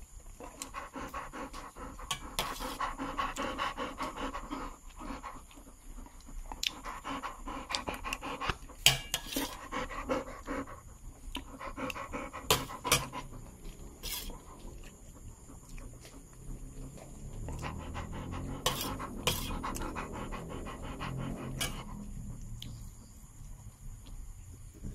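Rottweiler panting close by, with a few sharp clicks here and there.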